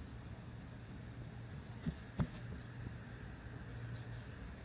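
Quiet outdoor ambience with a steady low hum, broken by two short knocks about two seconds in.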